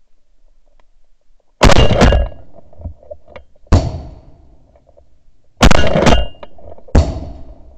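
A volley of shotgun shots from duck hunters firing at ducks in flight. There are about six blasts over some five seconds, some coming close together in pairs, each with a ringing tail.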